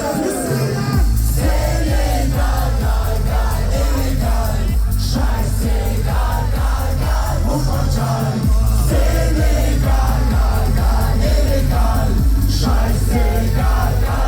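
Loud live party music with a heavy, pulsing bass beat and singing voices over it; the deep bass comes in about a second in and thins out for a moment around eight seconds.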